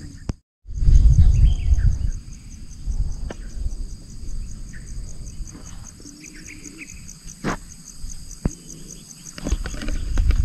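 Insects chirring steadily in a high pitch with a regular pulse, under low rustling footsteps of someone walking over rough ground. A few sharp clicks stand out, and the sound cuts out for a moment just after the start.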